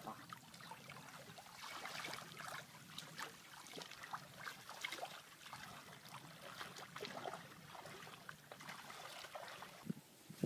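Shallow water splashing and trickling as a fishing net is hauled through it by hand, with many small irregular splashes and drips.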